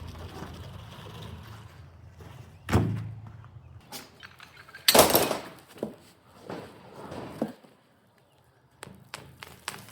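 Two loud thuds, one about three seconds in and a louder, longer one about five seconds in, followed by several smaller knocks.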